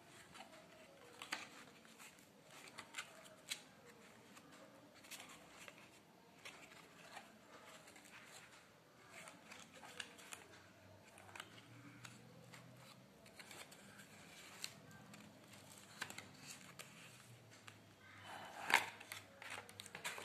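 Card-stock flaps and small paper boxes of a handmade explosion gift box being handled and folded: faint, scattered paper clicks and rustles, with a louder flurry of crackling near the end.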